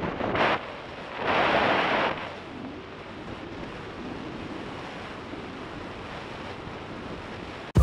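Wind rushing and buffeting over a camera's built-in microphone on a moving motorcycle, with loud gusts in the first two seconds, then a steadier, quieter rush.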